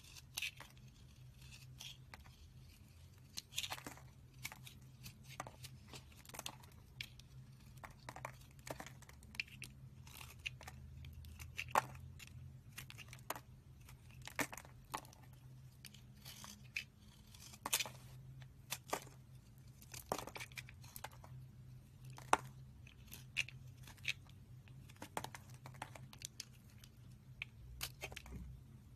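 A small blade cutting into a dry bar of soap, slicing off pieces with crisp, irregular crunches and crackles, several a second.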